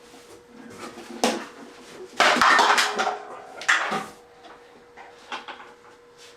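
Hard tools and parts clattering and knocking on a workbench as things are moved aside, the loudest rattle about two seconds in, then a few lighter knocks. A faint steady hum runs underneath.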